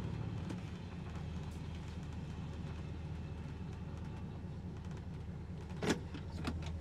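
1966 Ford Country Sedan station wagon's big-block V8 idling steadily with an even low pulse. A short sharp sound cuts in about six seconds in.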